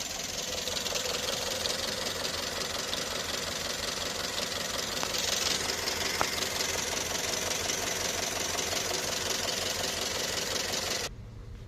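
Toyota Yaris engine idling roughly and unevenly, shaking, with an uneven low pulse: a misfire on cylinder 3, traced to a faulty ignition coil. The sound cuts off abruptly near the end.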